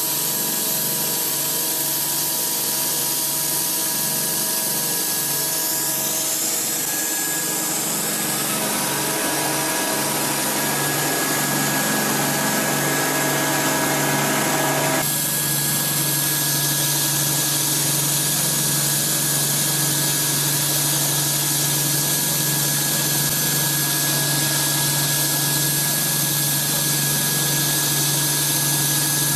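An industrial machine tool running steadily: a constant hum with a few held tones over a high hiss. The sound changes abruptly about halfway through.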